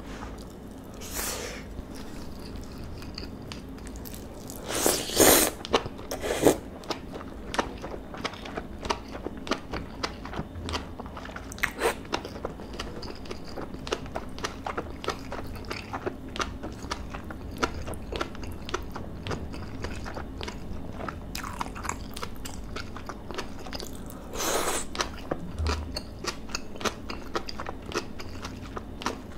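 Close-miked chewing of rice and marinated beef bulgogi: a steady run of small wet clicks and smacks. There are a few louder noises, the loudest about five seconds in.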